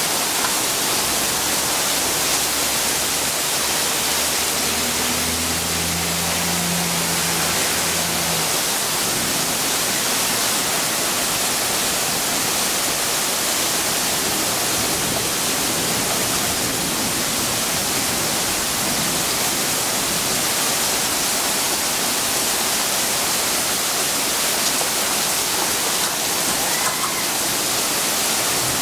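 Torrential rain pouring down in a steady, dense hiss that does not let up.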